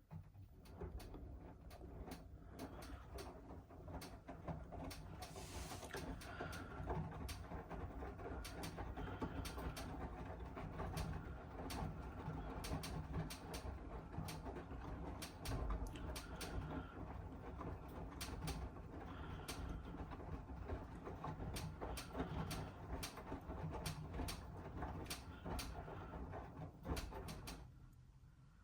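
Miele W1 Active washing machine running: a steady motor hum with many irregular clicks and knocks from the turning drum. It starts abruptly and fades out near the end.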